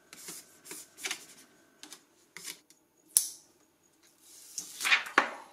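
Light clicks, taps and scrapes of a plastic card worked across a screen protector film on a touchscreen, and of the film being lifted back off the glass. There is a sharper click about three seconds in and a longer swelling rub near the end.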